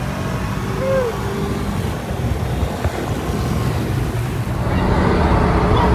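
Car engine and road noise heard inside the cabin while cruising at highway speed: a steady drone that gets a little louder near the end.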